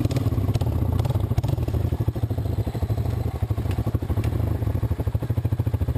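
1985 Honda ATC 250SX three-wheeler's single-cylinder four-stroke engine idling with a steady, fast pulsing, heard close up from the machine itself, with a few light clicks.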